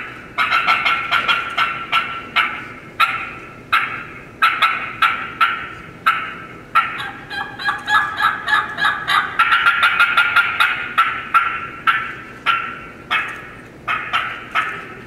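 A turkey call imitating the cutting of an excited hen turkey: loud, sharp, irregular cuts and clucks mixed with yelps, breaking into a faster, denser run in the middle.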